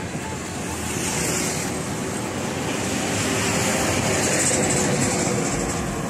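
Road traffic noise: cars and a dump truck passing on the road beside the cyclists, a steady rushing sound.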